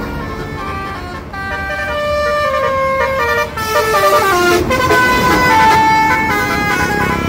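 Roof-mounted Basuri telolet horns on a tour bus playing a tune: a run of stepped notes, several horn trumpets sounding at once and changing pitch note by note, over a low engine rumble.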